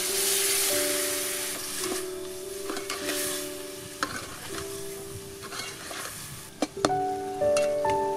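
A milky liquid poured into a hot aluminium pot of pea eggplant curry, hissing and sizzling, then a metal ladle stirring through it with a few sharp knocks against the pot near the end. Light background music with held notes plays along.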